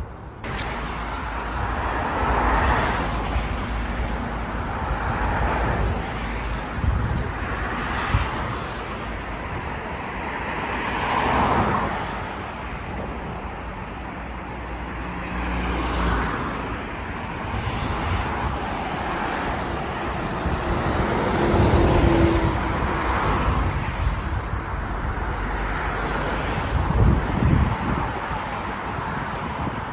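Road traffic noise: a steady rumble with cars passing, rising and falling every few seconds.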